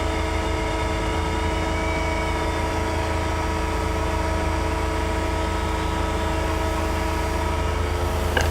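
TOS Hostivar BUB 32A/1500 universal cylindrical grinder running with its hydraulics and grinding wheel on: a steady hum made of several constant tones. Near the end the tones shift slightly and there is a short click.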